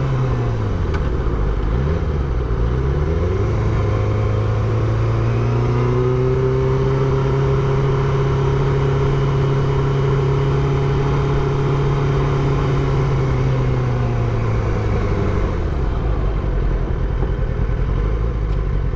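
Motorcycle engine running under way: its pitch drops at the start, dips and climbs again over the next few seconds, holds steady for about ten seconds, then falls off near the end.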